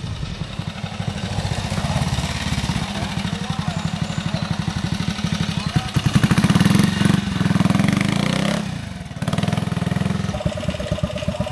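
Vintage trial motorcycle engine running with a rapid low exhaust beat as the bike climbs, getting louder about six seconds in, easing off briefly near nine seconds, then picking up again.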